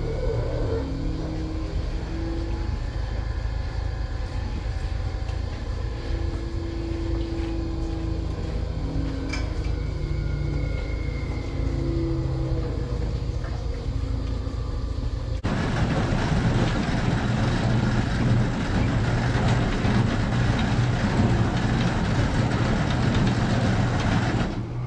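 Steady mechanical hum of dairy barn milking equipment. About fifteen seconds in, it changes abruptly to the louder, denser running noise of a Badger silage chopper box driven by an electric gear-reduction motor, which drops off just before the end.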